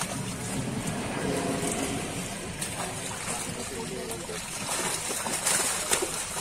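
Fish thrashing and splashing in a seine net drawn tight in shallow pond water, with sharper splashes as fish are thrown back into the pond; the loudest splashes come near the end.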